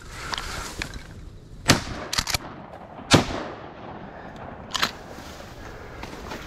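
Two shotgun shots about a second and a half apart, each a sharp crack with a short echoing tail. A few quick clicks come between the shots, and a softer knock follows about a second and a half after the second shot.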